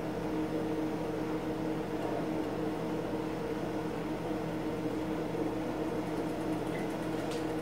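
Steady low electrical hum over a faint fan-like hiss, the kitchen's appliance room tone, with no distinct clinks or knocks.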